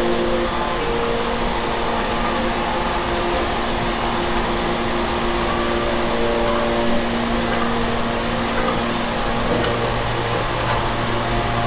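Food-production encrusting (filling and wrapping) machines running steadily: an even mechanical rush with a constant motor hum under it.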